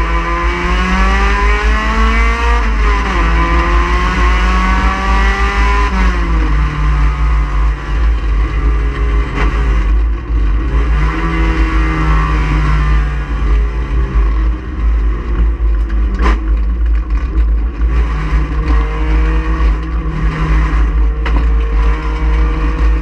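Touring race car engine at high revs, climbing in pitch and dropping sharply at each gear change, then easing off and picking up again through a corner, over a heavy low rumble. A single sharp knock comes about two-thirds of the way through.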